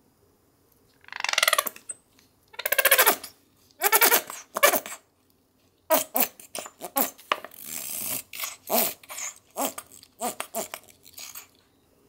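A squeeze tube of sweetened condensed milk being pressed, the thick milk and trapped air squelching and sputtering out of the nozzle: three longer squeezes, then a quick run of short spurts.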